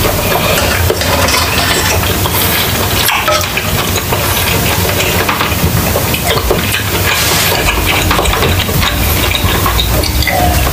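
Close-miked eating: a metal spoon clinking and scraping in a pot of lomi soup, and chewing, over a steady sizzling hiss. Near the end comes a drink of water.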